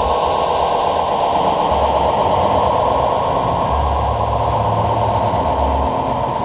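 Electronic noise piece: a steady, loud wash of filtered hiss, cut off sharply in its upper range, over a low hum that sounds in blocks, briefly about two seconds in and again from about four to six seconds.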